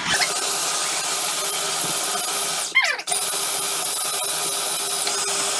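Food processor motor running, chopping pitted dates and walnuts into a crust mixture, with a steady high whine. It stops briefly about halfway through and starts again.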